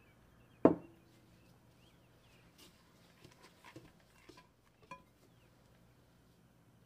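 A glass mixing bowl knocks once, sharply, on a wooden tabletop about a second in, with a short ring. A few light taps and clicks of kitchen handling follow. Faint birds chirp in the background.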